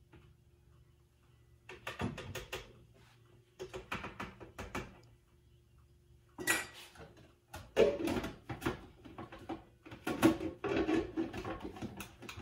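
Clicks, knocks and clatter of a plastic food processor's bowl, lid and feed-tube pusher being handled and fitted, in several bunches after a quiet first couple of seconds; the motor is not running.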